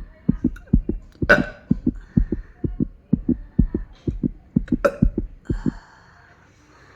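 A woman forcing out a rapid string of short, low burps, about four a second, on an empty stomach with no fizzy drink. The string stops about six seconds in.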